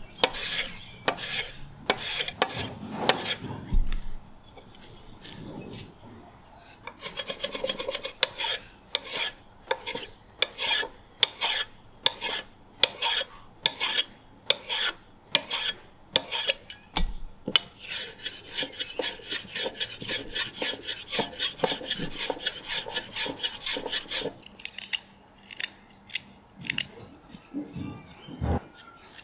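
Small hand plane taking repeated scraping strokes across the top of a wooden knife handle, about one stroke a second, some strokes chattering. Near the end, a few quieter knife cuts into a stick of wood.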